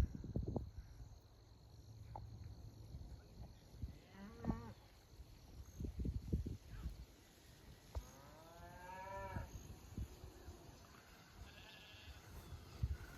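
Farm livestock, sheep, goats and cattle, calling as the herd is moved: a short quavering bleat about four seconds in and a longer call from about eight to nine and a half seconds, over scattered low thumps and rumble.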